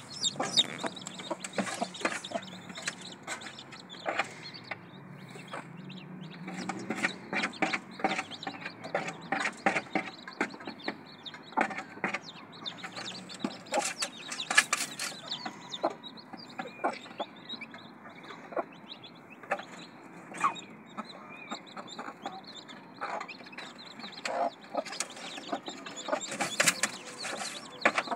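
Mother hen clucking to her chicks, with frequent short, irregular taps and clicks throughout.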